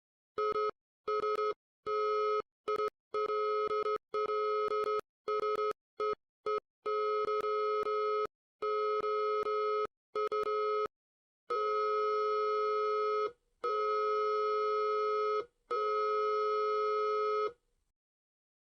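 Electronic alert tone of an emergency alert broadcast, steady in pitch, chopped into irregular short and long beeps, then three long tones of about two seconds each that stop shortly before the end.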